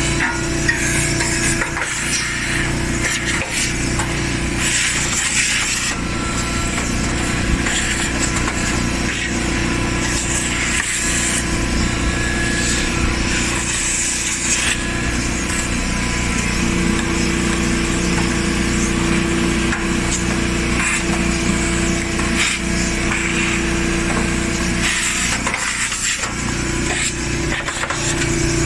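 Vacuum cleaner running steadily, a constant motor hum under the rush of air, cleaning out the inside of a dryer.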